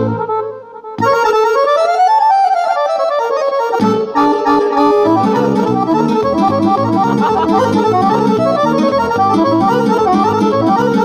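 Piano accordion playing a lively tune: after a brief break, a melodic run with no bass for about three seconds, then the bass-and-chord beat comes back in and the playing goes on at a steady pulse.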